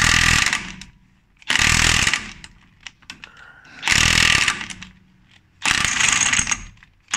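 Impact gun hammering on a tight front axle nut in four short bursts with brief pauses between, set to speed 3 to try to break the nut loose.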